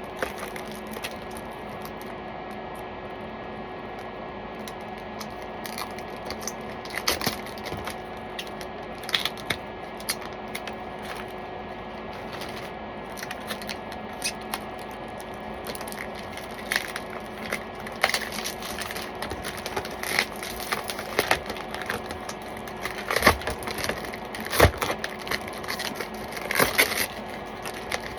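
Plastic packaging crinkling and crackling as it is handled, with irregular clicks and sharp taps of a hard clear plastic laptop shell. The handling is sparse at first and becomes busier and louder in the second half.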